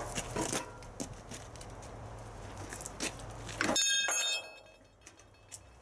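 Metal clanks and knocks from an old cast-iron hand lever shear being worked with its geared blade arm. About three and a half seconds in comes a sharp steel clang that rings briefly with several high tones.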